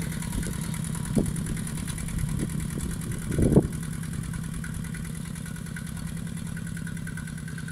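Single-cylinder diesel engine of a two-wheel walking tractor running steadily under load as it pulls a plough through dry soil. A few short thumps stand out, the loudest about three and a half seconds in.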